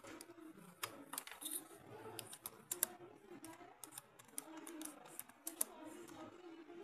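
Laptop keyboard being typed on: irregular sharp key clicks, some louder than others, over a faint low murmur.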